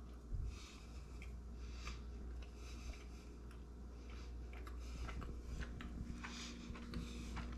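Faint mouth sounds of a person chewing a bite of soft powdered-milk fudge: small wet clicks scattered throughout, over a low steady room hum.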